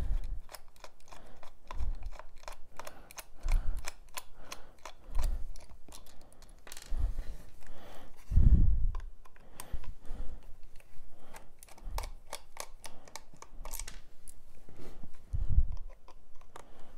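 Plastic housing of an ATEQ VT15 TPMS reset tool being handled and unscrewed with a small screwdriver: scattered light clicks and taps, with dull low thumps every couple of seconds.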